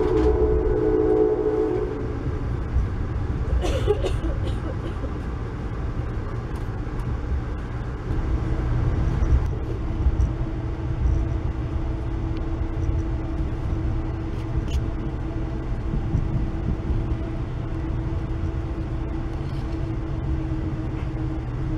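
Amtrak Northeast Regional train running at speed, heard from inside the coach: a steady low rumble with occasional sharp clicks and clatter from the track. A horn chord sounds and stops about two seconds in. A steady low hum joins about eight seconds in.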